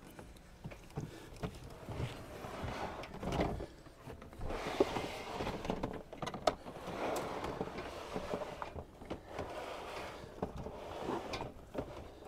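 A large plastic storage tote holding a folded e-bike being dragged up a pet ramp: uneven scraping and sliding, with scattered knocks and clunks.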